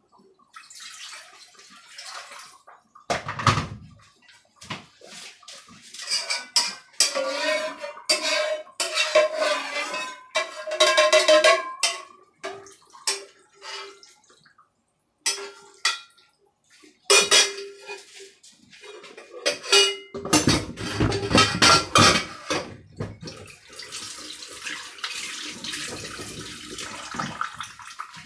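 A metal spoon clinking and scraping against a frying pan as curry sauce is stirred, with water poured from a pot into the pan and the liquid rushing and bubbling.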